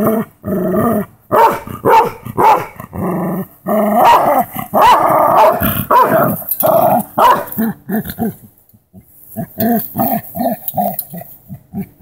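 A pit bull–Great Dane mix dog growling in repeated bursts while guarding its toy from its owner. The growling pauses briefly about two-thirds of the way in, then comes back as a run of quick short growls.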